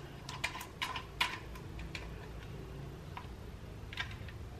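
Light plastic clicks and taps from a plastic milk-bottle-style drinking bottle being handled while its top is pulled at. Several come in quick succession in the first second and a half, then a few scattered ones.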